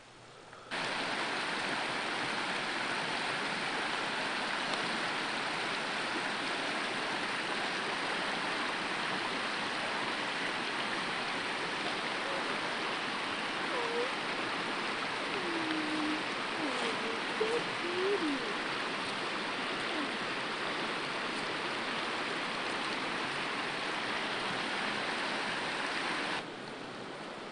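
Water pouring and splashing off a large wooden waterwheel: a steady rushing sound that starts abruptly about a second in and cuts off abruptly near the end.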